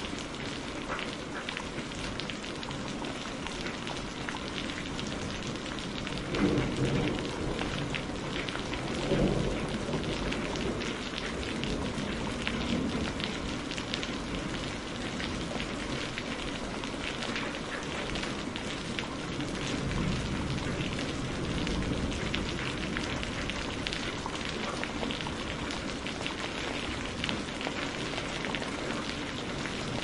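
Steady heavy rain hissing and pattering, with two low rumbles of thunder a few seconds apart in the first third.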